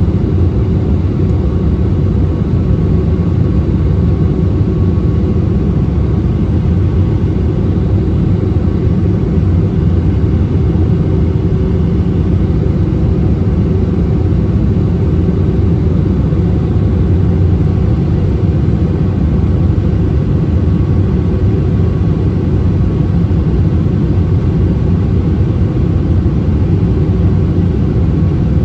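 Airbus A319-100 airliner in flight, heard inside the cabin over the wing: the steady, unbroken low rumble of the jet engines and airflow.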